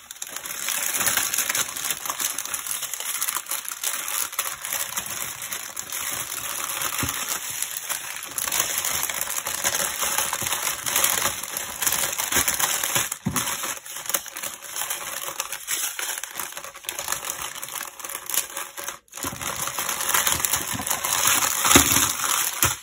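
Clear plastic bags of diamond-painting drills crinkling and rustling as they are handled and packed into a larger plastic bag, with a steady stream of small clicks and crackles.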